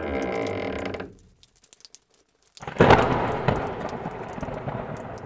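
A droning synthesizer-like tone cuts off about a second in. After a short gap, a sudden loud clap of thunder breaks in, with rain that slowly fades.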